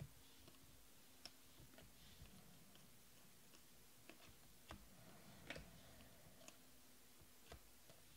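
Faint, irregular clicks and ticks of stiff glossy Panini Prizm baseball cards being slid and flipped one at a time through the hands, over near silence.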